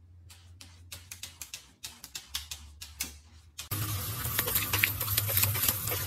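A run of quick, irregular light clicks and taps, then, about three and a half seconds in, the steady hiss of a garden hose nozzle spraying water starts abruptly.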